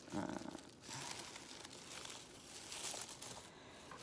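Strips of Mylar balloon foil crinkling and rustling as they are handled and worked into a lap loom's warp, loudest right at the start.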